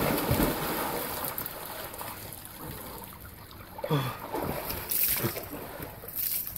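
Water splashing and churning as a person plunges into an inflatable above-ground pool, then sloshing as it settles. About four seconds in there are a few short vocal sounds and more splashing as he stands up and climbs out.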